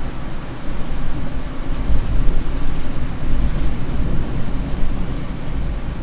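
Wind buffeting the microphone: a loud, uneven low rumble with a fainter hiss above it.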